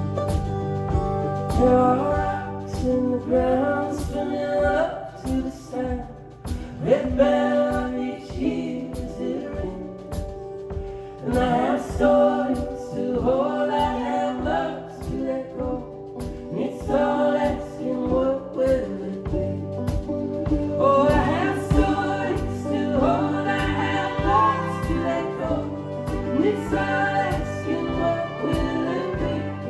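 Indie folk band playing a song live: sung vocals over a steady beat and a sustained low bass line.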